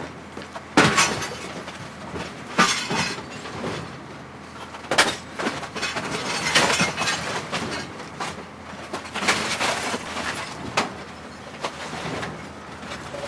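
Garbage crusher grinding up trash: a steady mechanical background broken by loud, irregular crunching and breaking bursts, about six of them, a second or two apart.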